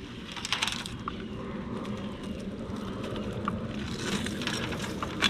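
Steady low outdoor background noise with a faint hum, broken by a few brief soft rustles and scrapes about half a second in and again around four seconds in, and a small click near the end.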